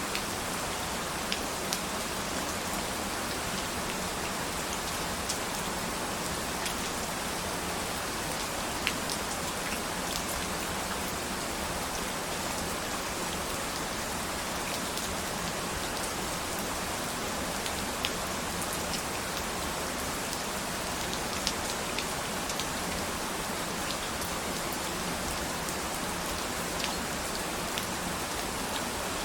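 Steady rain falling, a dense even hiss with individual drops ticking sharply here and there.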